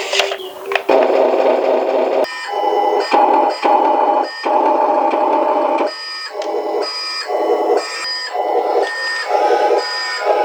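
Small electric motor running in short bursts, starting and stopping about once or twice a second, with a thin whine above a rough buzz.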